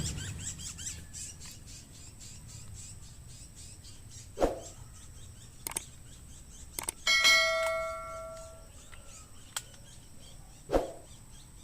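Two short dull thumps several seconds apart, with a bell-like metallic ring fading out between them, over faint bird chirps.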